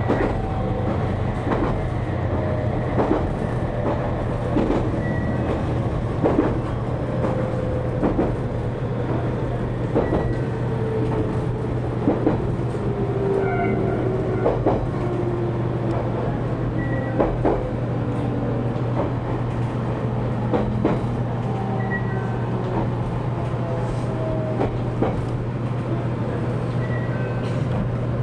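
JR Kyushu 813 series electric train running, heard from inside the car: a steady low hum with wheel clicks over rail joints at irregular intervals. A faint whine slowly falls in pitch as the train slows toward a station.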